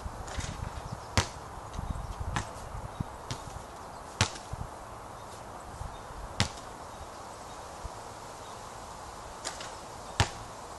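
A basketball bouncing on a hard outdoor court: several sharp single bounces spread a second or more apart, over a steady background hiss.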